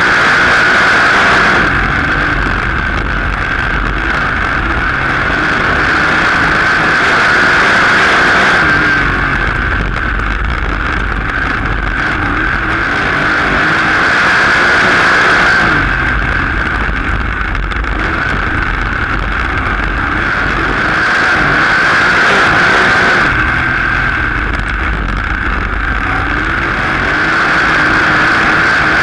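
Sprint-style race car engine running at racing speed, heard onboard the car. It swells and eases in a regular cycle about every seven seconds as the car accelerates down the straights and lifts for the turns, lap after lap.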